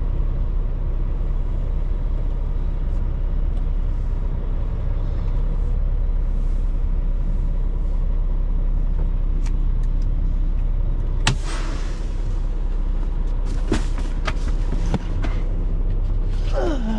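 Semi truck's diesel engine running steadily, a low rumble heard from inside the cab. A few sharp clicks come in the second half.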